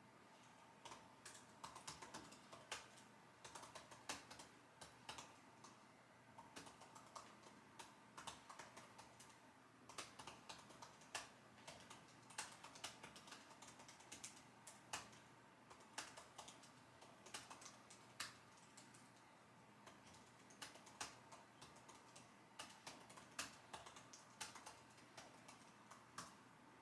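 Quiet computer keyboard typing: irregular runs of keystroke clicks with short pauses between them.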